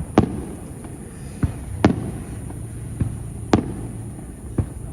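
Aerial fireworks shells bursting: about six sharp bangs at uneven intervals, each echoing briefly, over a steady low rumble.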